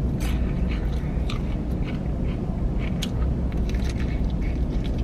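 Close-up biting and chewing of fried chicken, with many small, sharp clicks, over a steady low hum in a truck cab.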